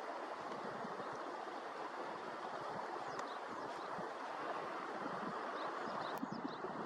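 Steady rush of running water, with a few faint, short bird chirps about three seconds in and again near the end.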